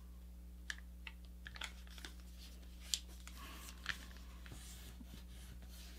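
Paper being folded by hand: faint rustling with a few small sharp clicks and crinkles as the sheet is moved and creased flat. A low steady hum sits underneath.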